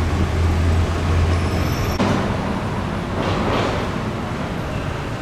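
Road traffic: a steady low engine hum for the first two seconds, then a vehicle passing by about three seconds in.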